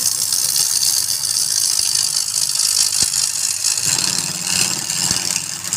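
Wood lathe motor running with a steady low hum while a tool works the spinning wood, making a loud, continuous high hiss.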